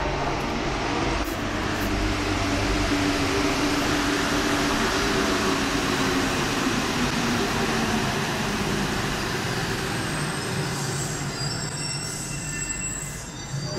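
Paris Metro Line 1 rubber-tyred train pulling into the station and braking to a stop, a building rush of noise with a slowly falling motor whine. About ten seconds in, thin high squeals take over as it halts.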